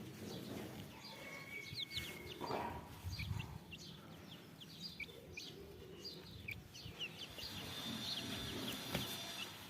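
Silkie chickens peeping: many short, high chirps, overlapping and scattered throughout.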